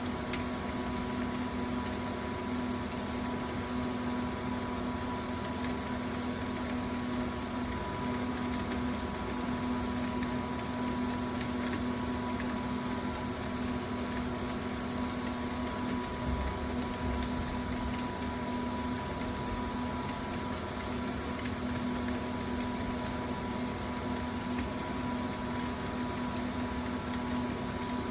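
A steady mechanical hum with one strong low tone and fainter higher tones.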